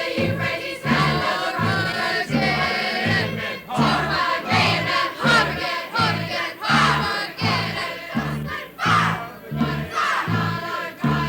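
A choir singing and shouting over band music, with a steady low beat about twice a second and several voices swooping upward in the second half.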